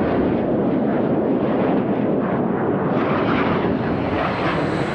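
Jet aircraft in flight, heard from inside the cockpit: a steady rush of engine and airflow noise, its character shifting slightly about three seconds in.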